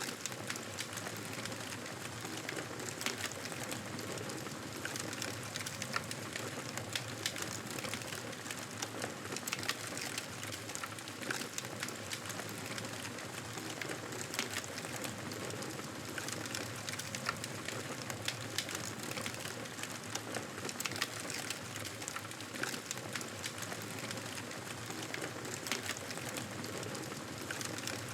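Fireplace crackling: irregular sharp pops and snaps over a steady hiss.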